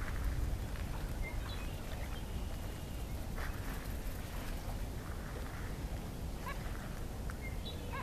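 Gulls giving a few brief, scattered calls over a steady low rumble.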